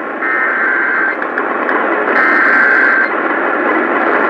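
NOAA Weather Radio EAS SAME header: two buzzy digital data bursts, each about a second long and a second apart, warbling between two high tones over steady radio static. They are the coded header that announces a new alert.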